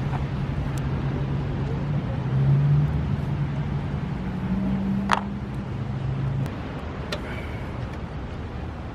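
A steady low engine-like hum that drops away about six and a half seconds in, with a single sharp clink about five seconds in.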